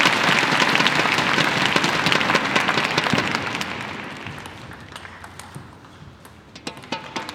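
Arena crowd applauding a table tennis point: dense clapping, loudest in the first three seconds, then dying away. Near the end come a few sharp clicks of a table tennis ball bouncing.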